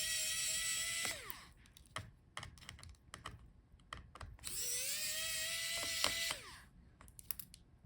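Small electric screwdriver backing out the laptop's heatsink screws: two runs of steady motor whine that wind down as each screw comes free, the first ending about a second in and the second about six and a half seconds in, with small clicks of the screws and tool in between.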